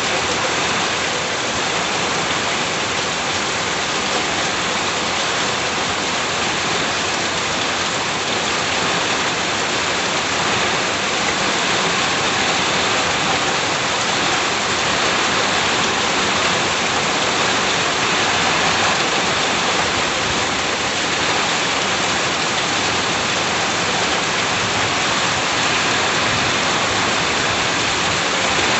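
Steady rain falling, a dense even hiss that holds without change.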